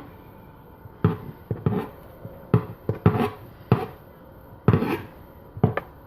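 Hands gathering thin, buttered strips of paratha dough together on a board: an irregular run of about nine soft knocks and slaps.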